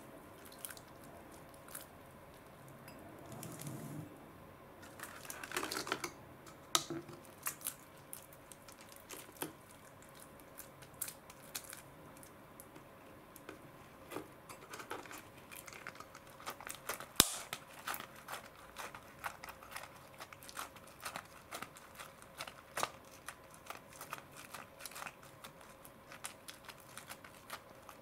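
Hands kneading and squeezing a lump of sticky slime dough, giving faint, irregular wet clicks and crackles, with one sharper click partway through.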